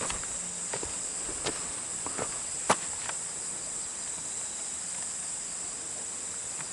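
A steady high-pitched chorus of insects buzzing, with a few footsteps in the first half, the loudest near the middle.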